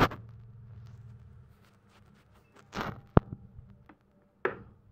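Handling noise from work on an inverter welding machine's circuit board: a few separate clicks, knocks and rustles, the sharpest click about three seconds in.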